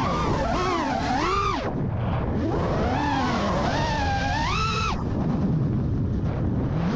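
Freestyle FPV quadcopter's brushless motors whining, the pitch swinging up and down with the throttle. It drops away sharply twice, about two seconds in and again about five seconds in, then climbs again near the end.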